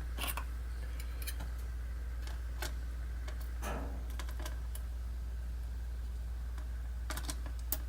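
A few light, scattered clicks of small lock pins being handled on a pin tray, a close pair of clicks near the end, over a steady low hum.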